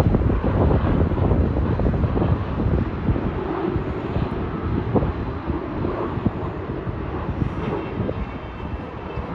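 Jet engines of a Boeing 737 airliner on landing approach, a broad rushing noise that slowly fades as the plane passes by, with wind gusting on the microphone.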